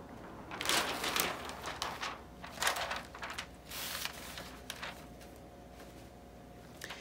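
Clear plastic hotfix rhinestone transfer tape and its backing sheet rustling and crinkling as they are handled and laid onto a t-shirt: several short rustles in the first four seconds, then quieter.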